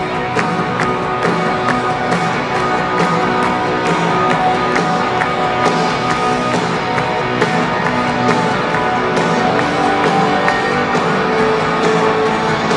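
Rock band playing live: electric guitars over a steady, fast drum beat.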